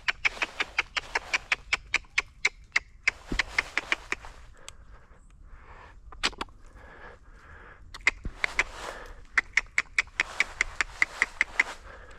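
Gray squirrel alarm calls: rapid runs of short, sharp barks, about five a second, in a long bout at the start, a short one midway and another long bout near the end.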